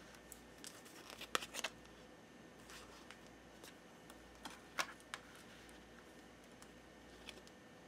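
Tarot cards being handled: soft, scattered clicks and flicks of cards against the deck and the table, a quick cluster about a second in and the clearest one near five seconds.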